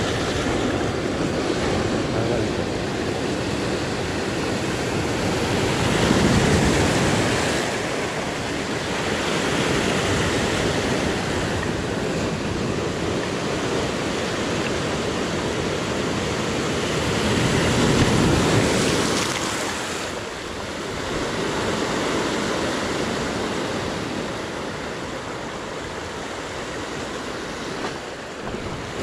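Sea waves surging and washing in, swelling louder twice, about six seconds in and again around eighteen seconds.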